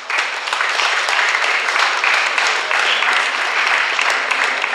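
Audience applauding, many hands clapping together. The applause starts abruptly and then carries on steadily.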